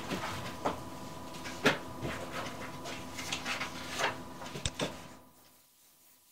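Steady room hiss with a faint hum, broken by a handful of sharp clicks and light knocks; it cuts off to near silence about five seconds in.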